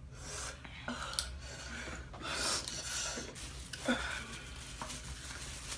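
People breathing hard in short, noisy breaths from the burn of extremely hot chicken wings, with a few brief faint vocal sounds.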